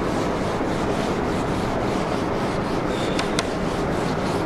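Whiteboard eraser rubbing back and forth across a whiteboard, a steady scrubbing noise, with two light clicks a little after three seconds in.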